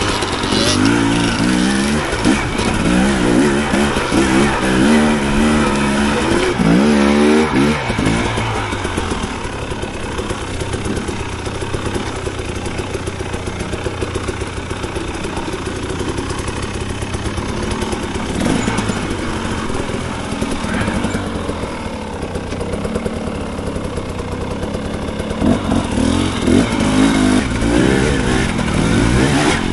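Dirt bike engine revving up and down repeatedly while riding a trail. It is busiest in the first few seconds and again near the end, lower and steadier in between.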